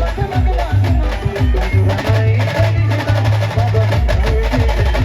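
Maharashtrian brass band playing a devotional song, with brisk drumming over held bass notes and a melody on top.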